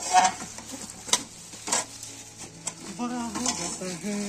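Black plastic carrier bag crinkling and rustling as hands rummage inside it, with a few sharp crackles, the loudest near the start.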